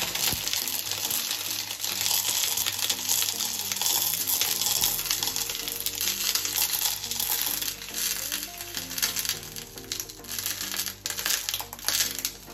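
Hot oil in a pan sizzling and crackling as coconut milk is poured in, the sizzle dying down over the second half. Background music plays along.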